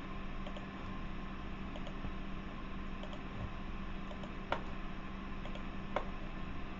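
Steady background hum with a few faint clicks scattered through it, and two sharper clicks about four and a half seconds in and again a second and a half later.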